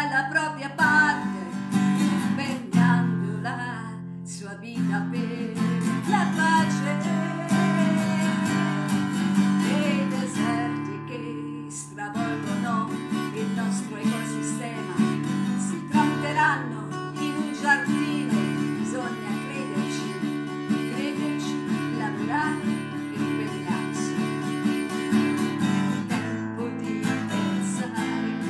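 A woman singing in phrases while strumming chords on an acoustic guitar.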